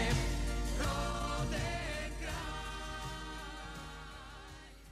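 Background music with a singing voice, fading out steadily to the end.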